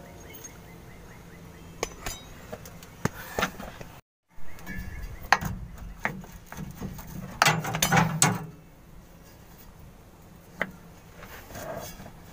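Metal parts clinking and knocking as a propeller shaft is handled and its flange offered up to the handbrake drum on the transmission output: scattered sharp knocks, with a louder cluster about eight seconds in.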